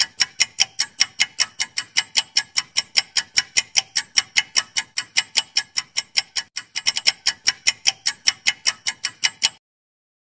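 Clock-ticking sound effect of a quiz countdown timer: rapid, even ticks, about five a second, stopping abruptly near the end.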